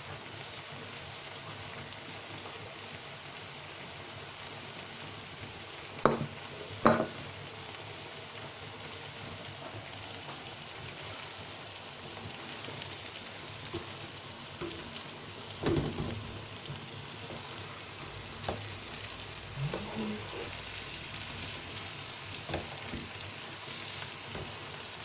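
Stew frying and sizzling steadily in hot oil in a cooking pot. A few sharp knocks cut through it, two about six and seven seconds in and another around sixteen seconds, with lighter clicks in between.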